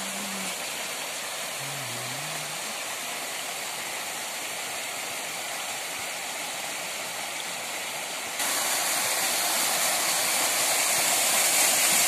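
Water of a small rocky waterfall rushing and splashing, a steady hiss. About eight seconds in it suddenly gets louder, then keeps growing toward the end as the falling water gets close.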